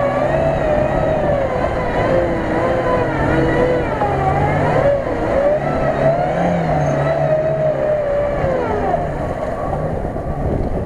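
Lada Niva's engine revving hard and unevenly, its pitch rising and falling again and again, as the wheels spin and churn through deep mud and water while the car is stuck.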